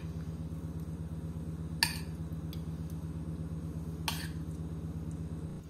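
A metal spoon clinking against the dishes while mango chunks are scooped from a ceramic bowl into a glass baking dish: two clear clinks about two and four seconds in, with a fainter tap between. A steady low hum runs underneath.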